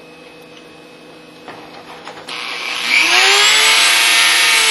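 Variable-speed Dremel rotary tool fitted with a cutoff wheel, switched on a little after two seconds in after a few handling clicks: its motor whine rises as it spins up, then runs steady at high speed with a loud hiss.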